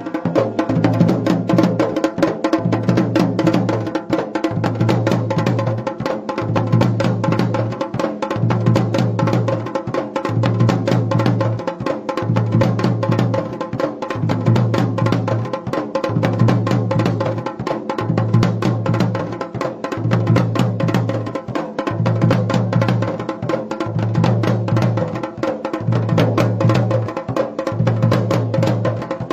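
Dhol and damau drums played together in a fast, dense beat, with a deep low note recurring about every two seconds.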